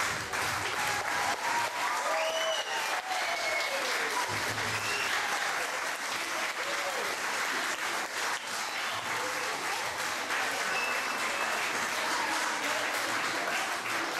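Audience applauding, with many hands clapping steadily and voices calling out over the clapping.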